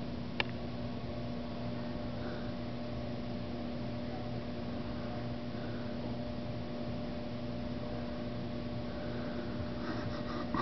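Steady electrical hum and hiss, with one sharp click about half a second in and a few faint short sounds near the end.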